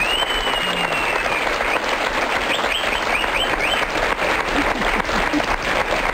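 Studio audience applauding steadily, with a few high whistles over the clapping.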